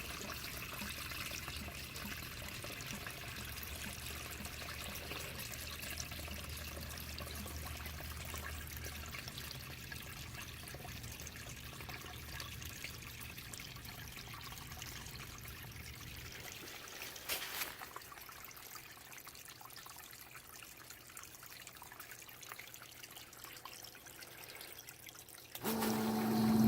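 Water trickling and pouring into a sump bucket over the low hum of a 1/2 hp Harbor Freight sump pump. About two-thirds through, the hum fades and a single knock follows. Near the end a much louder steady hum starts.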